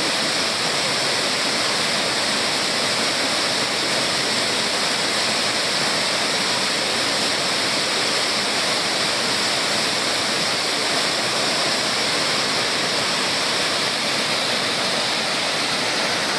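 Waterfall pouring down a rock face close at hand: a steady rush of falling water.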